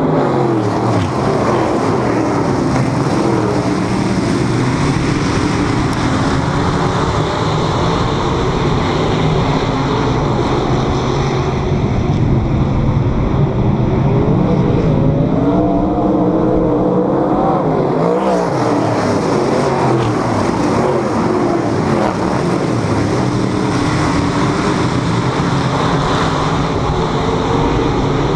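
A pack of dirt modified race cars' V8 engines running hard around the track, many engine notes overlapping and rising and falling, with one sweeping sharply up and then down about two-thirds of the way through.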